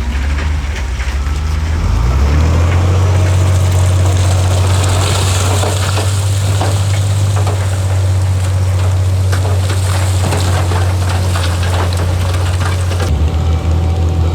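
Heavy diesel construction machinery running steadily at a low, even pitch, under a rushing, crackling noise of rock and dirt being moved. The crackling stops abruptly near the end while the engine keeps running.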